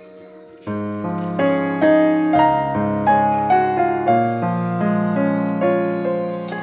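Background piano music: a slow melody of struck notes that ring and fade, with a fuller passage of chords starting under a second in.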